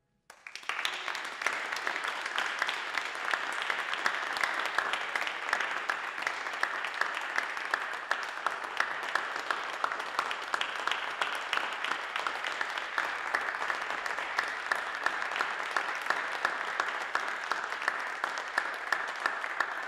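Applause from a small audience, the separate hand claps plainly distinct. It starts about half a second in and keeps an even level.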